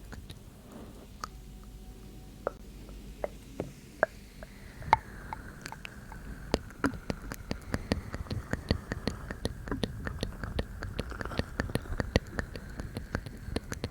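ASMR mouth sounds close to the microphone: wet clicks and smacks of the tongue and lips, a few scattered ones at first, then rapid, constant clicking from about five seconds in.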